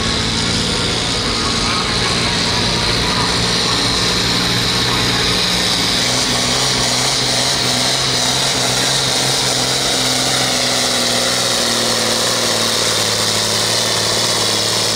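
John Deere 4020 diesel tractor's six-cylinder engine running flat out under full load while pulling a weight-transfer sled, a loud steady drone with a high whine above it.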